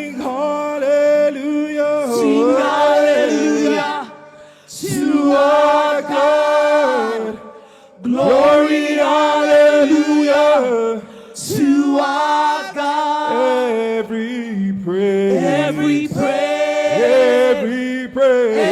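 Church worship team singing a slow praise song, held sung notes with short breaks between phrases about four and eight seconds in.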